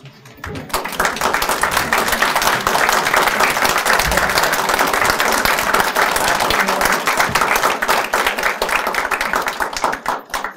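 Audience applauding, many hands clapping. It swells about a second in, holds steady, and thins out near the end.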